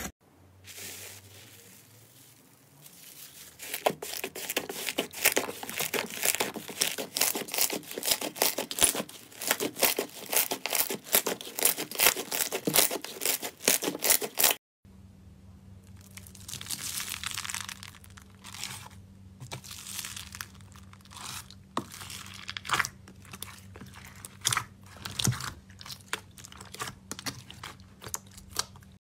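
Hands squeezing and kneading slime, making dense runs of quick crackling pops and squelchy clicks. After a short break about halfway, foam-bead slime (floam) is pressed in its tray, crackling and crunching over a faint steady low hum.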